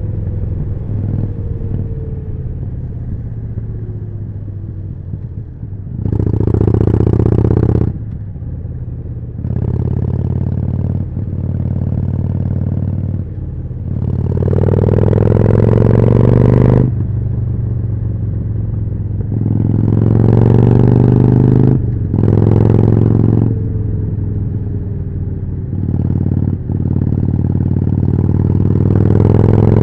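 Harley-Davidson Forty-Eight's 1200 cc air-cooled V-twin running through a Jekill & Hyde exhaust while riding. It opens up about six times, the pitch rising as it accelerates, with quieter stretches of rolling off in between.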